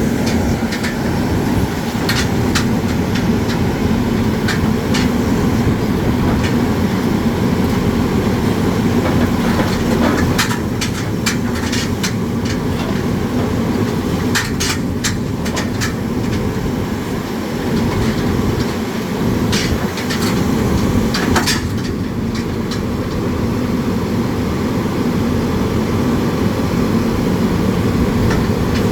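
Hard rock drilling rig running: a steady, loud mechanical rumble with a hum, and scattered sharp clicks and knocks, clustered around ten to fifteen seconds in.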